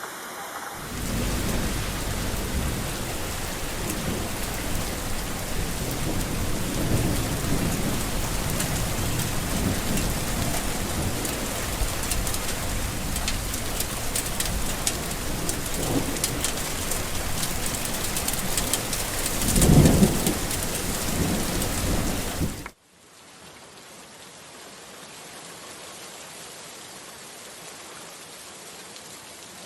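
Heavy rain falling steadily, with low rolling thunder and a louder thunder rumble about twenty seconds in. Near the end it cuts off suddenly to a softer, steady rain.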